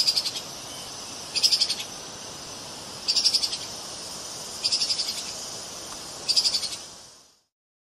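Treeshrew's call: five short bursts of rapid, high-pitched clicking chatter, about one and a half seconds apart, over a steady hiss. The recording fades out near the end.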